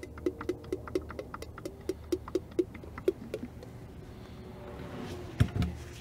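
AW46 hydraulic oil glugging out of a tilted plastic bucket's pour spout into a plastic pour jug: a quick run of gurgling clicks, about four a second, for the first three seconds or so. Near the end comes one heavy thump as the bucket is set down.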